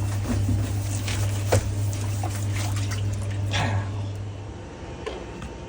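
Water running and splashing over a steady low hum that cuts off about four and a half seconds in, with a few short clicks.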